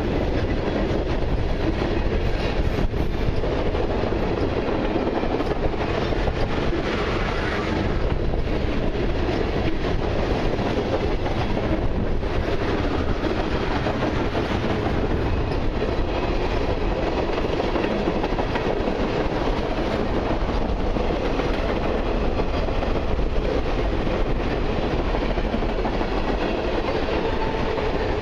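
Freight cars of a long mixed and autorack train rolling steadily past, steel wheels running over the rails.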